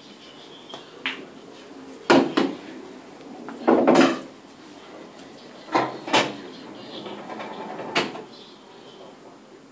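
Pool balls clacking: several sharp knocks a second or two apart as the cue ball is struck and balls hit one another and the cushions, two of them close together about six seconds in.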